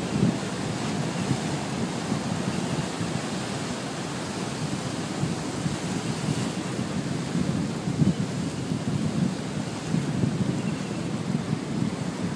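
Sea surf breaking over and washing around shoreline rocks, a continuous rush of waves that swells a little at times, with wind buffeting the microphone.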